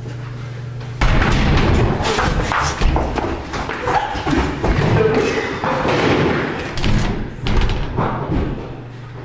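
Sudden loud banging on a dorm room door about a second in, followed by a scramble of running footsteps and thuds with shouting voices as people sprint away down the hallway.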